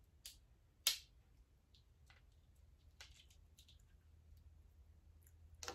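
Faint, scattered clicks and crackles of crab-leg shell being worked apart to get the meat out. The sharpest click comes about a second in, and another near the end.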